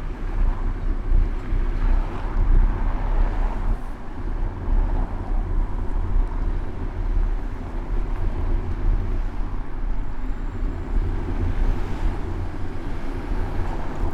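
Wind buffeting the microphone of a bicycle-mounted action camera in motion, a steady low rumble, with city traffic going by underneath.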